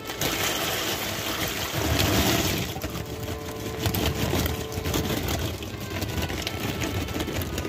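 Corn kernels and their liquid poured into a pot of water, splashing and sloshing as they land, heaviest about two seconds in.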